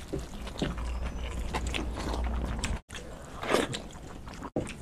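People eating with their hands: chewing and biting with small crunches and wet rice sounds, over a low hum during the first three seconds. A louder crunch comes about three and a half seconds in, and the sound breaks off briefly twice.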